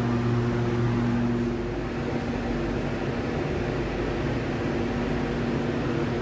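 Stationary Auckland AM class electric train humming at the platform: a steady electrical and fan hum from its onboard equipment, with a low tone that drops out about two seconds in.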